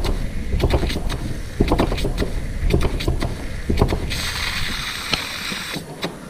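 Meccano toy steam engine running in reverse, chuffing unevenly about once a second; it runs in reverse less well than forward. About four seconds in there is a burst of steam hiss lasting under two seconds, and the engine quietens near the end.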